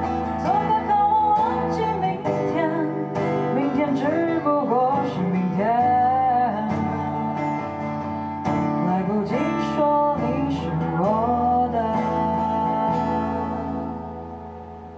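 Acoustic guitar playing with a woman's voice carrying a wordless, gliding melody over it, the song's closing passage. It fades out near the end.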